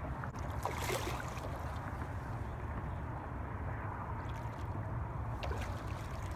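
Water sloshing and splashing against shoreline rocks as a hooked brown trout thrashes near the surface, with sharper splashes about a second in and again near the end, over a steady low rumble.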